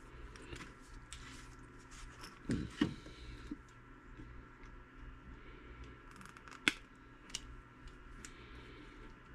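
Diagonal side cutters snipping through small plastic RC drive shafts, with light clicks of the parts being handled. The loudest snips come as a pair about two and a half seconds in and as a single sharp snap near seven seconds.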